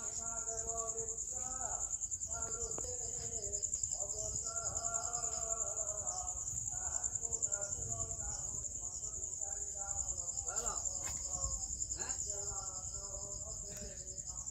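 Crickets trilling steadily on one high note, with people's voices in the background.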